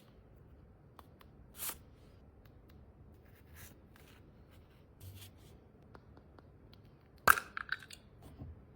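Small objects being handled on a surface: a few faint clicks and a soft brush early on, then a sharp click with a short clatter a little past seven seconds in.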